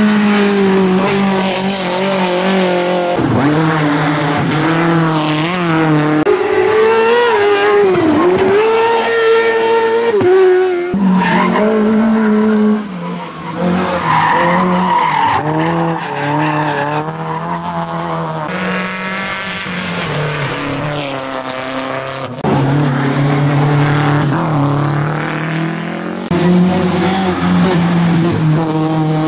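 Rally cars (a Renault Clio and Hyundai Accents) driven hard up a twisting mountain road one after another, engines revving high through the bends with rising and falling revs and gear changes.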